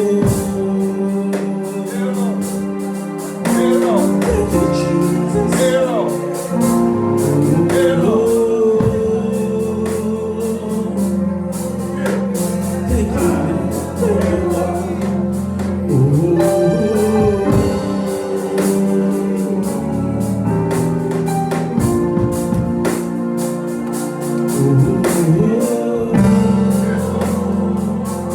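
Live gospel music: singing over organ with a steady drum beat.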